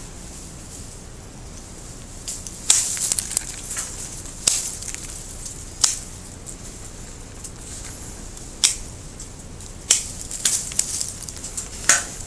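Pruning shears snipping Japanese maple twigs: about six sharp blade clicks spread out over the stretch, with brief rustles of leaves and twigs after several of the cuts.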